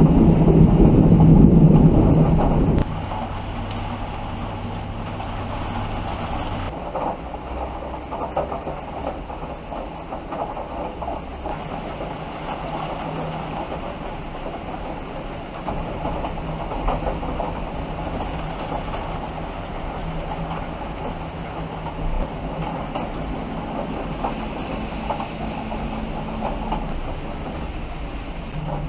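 A deep rumble of thunder that cuts off about three seconds in, followed by a steady low engine hum over a noisy background.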